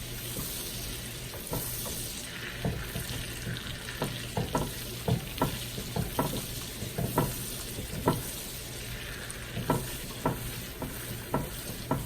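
Butter melting and sizzling in a pan with a steady hiss, while a utensil stirs it, knocking against the pan about twice a second from a couple of seconds in.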